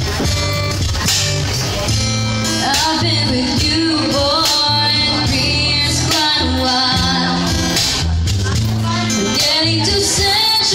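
A band playing a song with a singer, over guitar, bass and drums.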